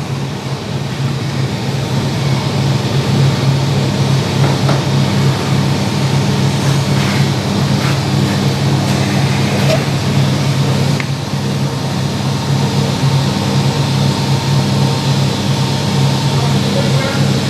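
A steady, loud low mechanical hum, with a few faint clicks.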